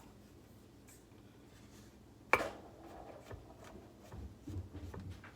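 A knife knocking and tapping on a cutting board while slicing button mushrooms. One sharp, loud knock comes about two seconds in, followed by a few softer taps.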